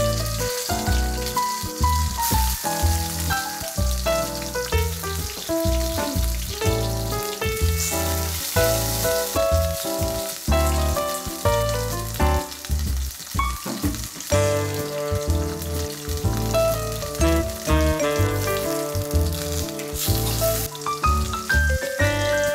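Tomato slices sizzling and frying in hot oil in a pan, with light jazz background music over the sizzle throughout.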